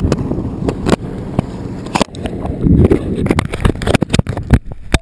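Jet ski ride: a loud, uneven low rumble broken by many sharp knocks and thumps.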